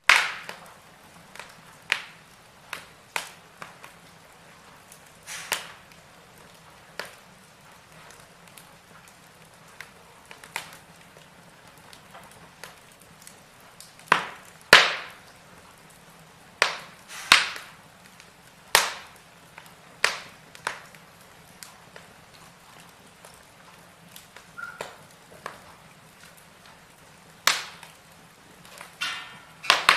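Wood fire burning in a fireplace: irregular crackles and sharp pops from the burning logs over a soft steady hiss, some pops much louder than others.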